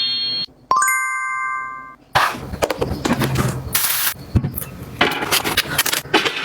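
A pitched electronic sound-effect tone cuts off half a second in. A bright chime-like ding follows and rings for about a second. After that comes a run of small clicks, taps and rustles, as objects and packaging are handled and set down.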